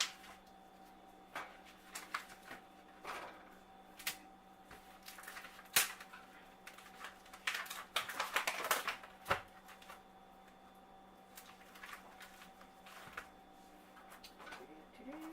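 Kitchen handling sounds: scattered light clicks and taps, with two short stretches of rustling and clatter around the middle, over a faint steady hum.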